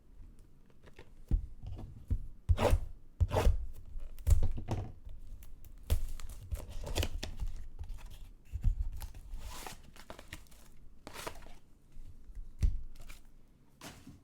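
Trading-card packaging being torn open and crinkled by hand: a string of irregular tearing and crinkling rips, some sharp and loud, others drawn out.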